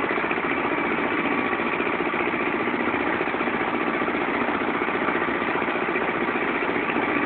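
Agrale 4100 tractor engine running steadily with a loud, even rumble.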